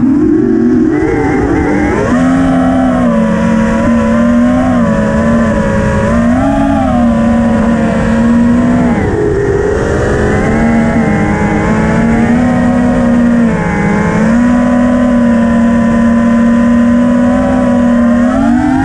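FPV freestyle quadcopter's brushless motors and propellers whining steadily, the pitch wavering up and down with the throttle, dipping about halfway through and climbing sharply at the end.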